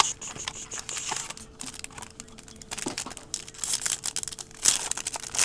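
Crinkling and tearing of a trading card pack's wrapper as the pack is opened, an irregular crackle of many small crackles with louder bursts.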